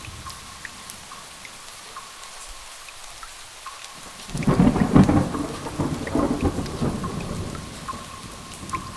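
Steady rain with scattered drops. A loud clap of thunder breaks in a little past four seconds in and rumbles away over about three seconds.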